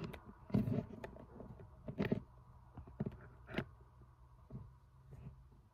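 Plastic action figures being handled and set down on a hard surface: a handful of separate light clicks and knocks spread over several seconds.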